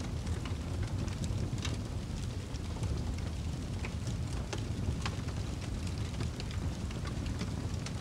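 Fireplace fire burning: a steady low rumble of flames with scattered sharp crackles and pops.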